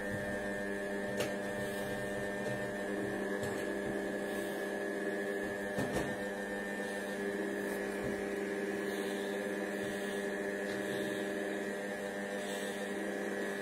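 Cecotec Mambo 8590 kitchen robot running a cooking program at stirring speed 1 and 100 °C: a steady motor hum with a thin high whine, and a couple of faint clicks.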